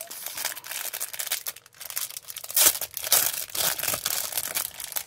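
Thin clear plastic wrapping crinkling and tearing as it is peeled off a small round container by hand, in irregular crackles with the loudest about two and a half seconds in.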